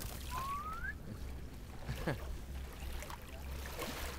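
Water moving against the hull of a sailboat moored at the bank, over a low steady rumble. About half a second in there is a short rising whine.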